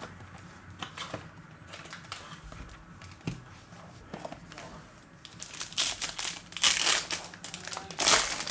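Plastic trading-card packaging being crinkled and torn open by hand: short scratchy rustles, louder and more frequent over the last three seconds.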